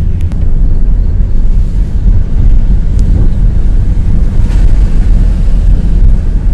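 Nissan Serena cabin noise while driving on a wet road: a steady low rumble of engine and tyres, with a few faint ticks.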